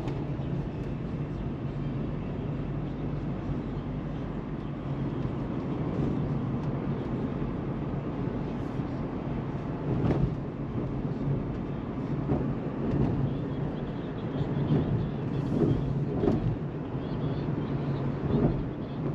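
A vehicle driving along, with a steady low engine and road hum and a few short knocks and bumps from the ride.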